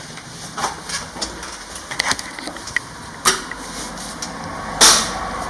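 A scattered series of short clicks and knocks, with the sharpest and loudest one about a second before the end.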